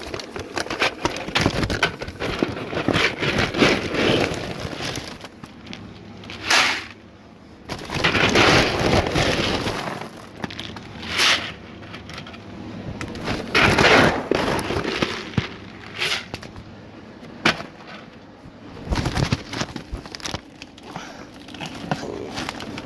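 Crackling, rattling handling noise of dry dog kibble shifting in a plastic bucket as it is carried and jostled. It is irregular, with several louder swishes.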